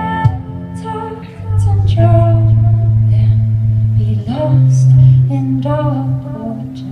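Live performance of a slow song: a woman's voice singing over keyboard and cello, with long held low notes under a wavering melody line.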